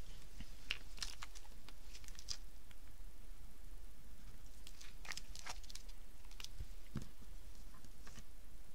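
Quiet handling noises of paper craft work: scattered light taps and brief rustles as small paper cut-outs and a plastic glue bottle are moved about on a tabletop, over a low steady hum.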